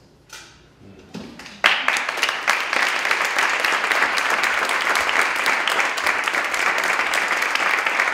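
Audience applause: a few scattered claps, then the whole audience breaks into dense, steady clapping about a second and a half in.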